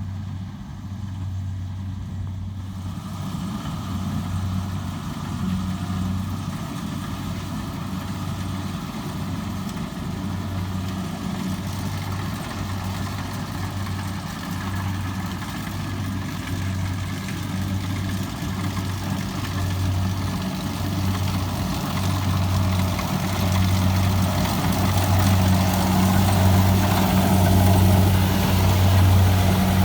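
Diesel engine of a Kubota DC70 combine harvester running steadily with a low hum, growing louder over the last several seconds.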